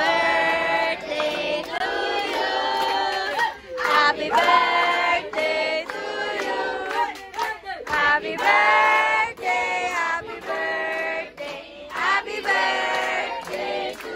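A group of adults and children singing a birthday song together, with hand clapping.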